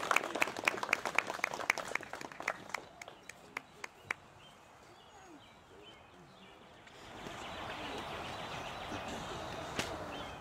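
Applause from a small outdoor congregation, scattered hand claps thinning out and stopping about four seconds in. Faint bird chirps follow, then from about seven seconds a steady rushing noise.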